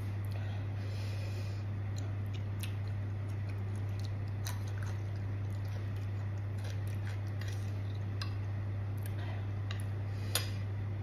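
A metal spoon and fingers clinking and scraping lightly on a ceramic plate, with one sharper clink near the end, over a steady low hum.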